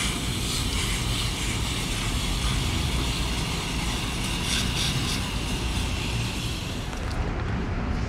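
Water jetting from a hose spray nozzle onto the fins of a rooftop package air-conditioning unit's condenser coil, a steady rushing spray, rinsing the coil clean.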